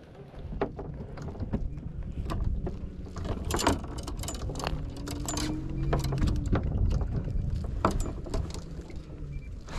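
Clicks, knocks and rustles of hands handling a small sheepshead and working a hook out of its mouth, over a steady low rumble of the boat on the water.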